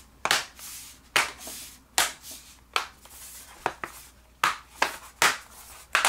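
Base cover of a Dell Inspiron 15-5000 laptop being pressed down by hand, its clips snapping back into place one after another: about eight sharp snaps spread across the few seconds.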